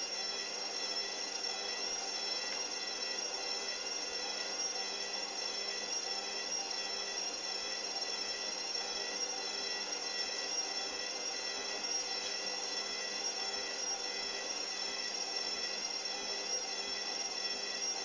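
Hoover Dynamic washing machine spinning, its motor giving a steady, high-pitched whine at constant speed.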